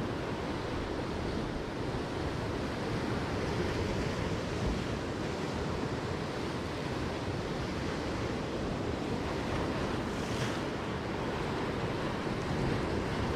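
Sea surf washing against rocks, with wind buffeting the microphone; a brief hiss about ten seconds in.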